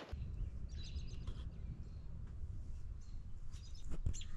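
Outdoor ambience: a steady low rumble of wind on the microphone with a few faint bird chirps about a second in, opening with a sharp click.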